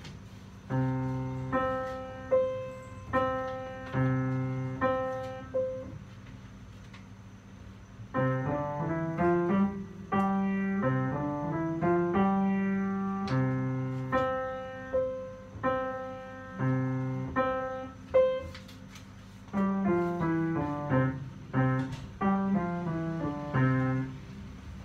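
Upright piano being played: phrases of struck chords and notes, with a short pause about six seconds in and rising runs of notes after it. The piece ends near the end.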